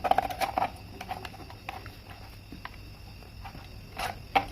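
Light clicks and scrapes of handling a screwdriver-type neon tester at an extension-board socket: a cluster of small clicks at the start, faint ticks in between, and a few sharper clicks near the end.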